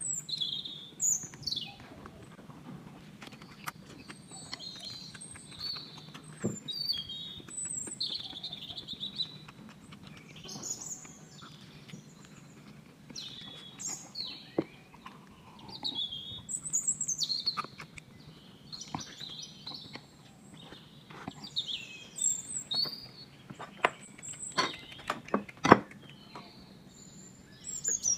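Birds chirping, with many short high chirps and whistles coming every second or two. A few sharp clicks and knocks sound about three-quarters of the way through.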